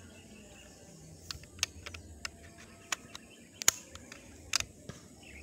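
A series of small, sharp, irregular clicks and taps, about ten over three and a half seconds, the loudest a little after the middle: handling noise from an air rifle being shifted and gripped while aiming at fish in the water.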